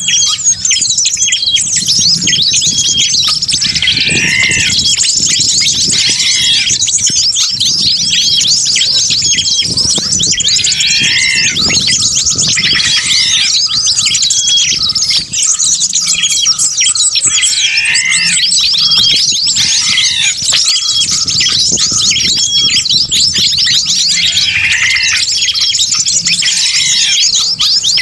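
Bird-lure recording of many small birds calling at once: dense, busy high chirping and twittering, with a lower arching call repeating every two to three seconds.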